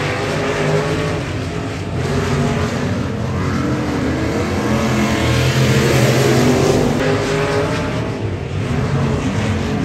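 A pack of dirt-track race cars racing around a dirt oval, several engines at high revs overlapping, their pitch rising and falling as the cars pass through the turn, loudest about six seconds in.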